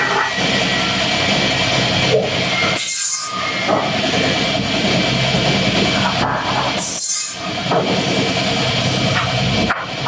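Wood-cutting machinery running with a steady mechanical hum and noise. It breaks off abruptly a little before three seconds in and again around seven seconds, as shots change.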